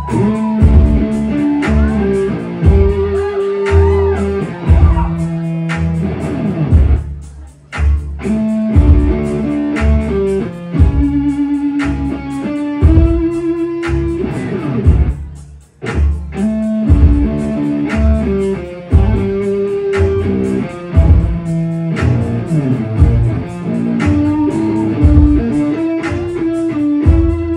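Live band playing an instrumental passage: electric guitar over bass and a steady beat. The music breaks off briefly twice.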